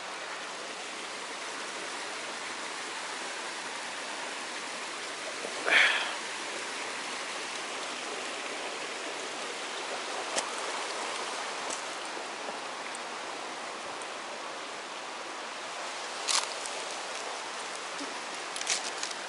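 Steady rush of flowing stream water, broken by a few brief sharp sounds, the loudest about six seconds in.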